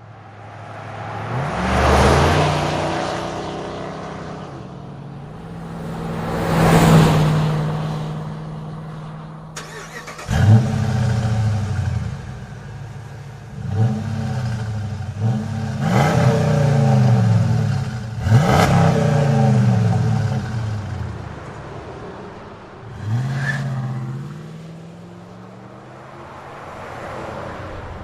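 A light truck's engine revving and accelerating. Its pitch climbs and then drops several times in a row as it shifts up through the gears, with two louder revving swells at the start.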